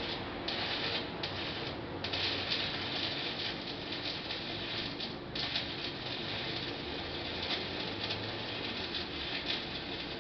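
Shielded metal arc (stick) welding arc crackling and sizzling steadily, with irregular small pops.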